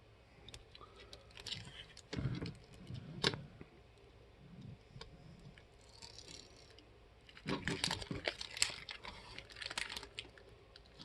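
Handling of a small plastic toy car and its wrapper: scattered light clicks and crinkling, with two busier spells, about two seconds in and around eight seconds in.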